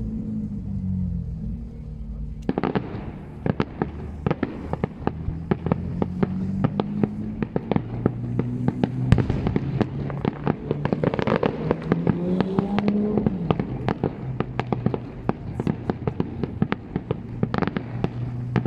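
Fireworks going off: a dense run of sharp bangs and crackling that starts about two and a half seconds in, over a low wavering pitched sound.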